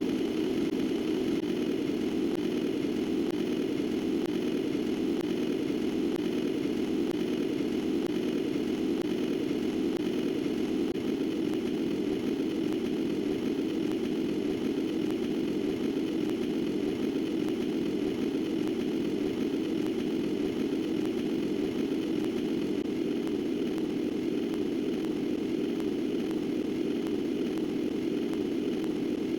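A steady, unchanging mechanical hum, strongest in its low-middle range, with no breaks or changes in pitch.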